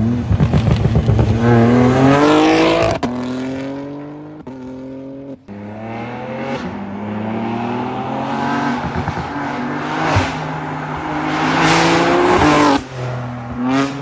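BMW G82 M4's twin-turbo straight-six, breathing through an Fi valvetronic catback with catless downpipes, accelerating hard past the listener in several separate runs. The exhaust note climbs steadily in pitch, drops sharply at an upshift near the end, then climbs again briefly.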